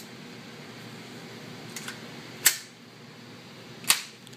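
Metal clacks of an AR-15 rifle's action being worked to clear a jam: a couple of faint clicks, then two sharp clacks about a second and a half apart.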